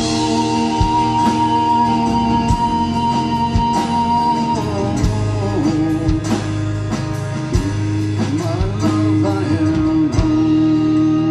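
Live band playing an instrumental passage: strummed acoustic guitar, electric bass and drums under a melody line that holds one long note for about the first four seconds, then moves on.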